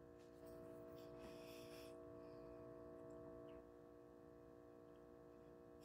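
Near silence: faint room tone with a steady low hum, and a slightly louder steady tone for about three seconds.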